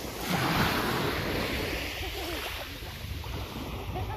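Calm sea water lapping at the shore, with wind buffeting the microphone.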